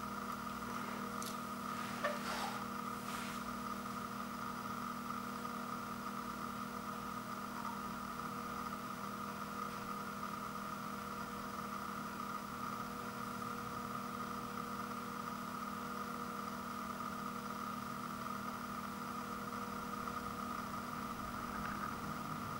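Steady mechanical hum made of several fixed tones. Over it, a few brief crinkles and clicks come from a plastic sauce packet being squeezed and handled about one to three seconds in.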